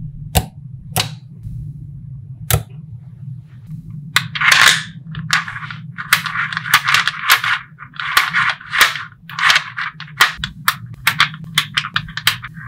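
Small neodymium magnetic balls clicking and snapping together: a few separate sharp clicks at first, then from about four seconds in quick runs of clicks and rattling clatter, over a low steady hum.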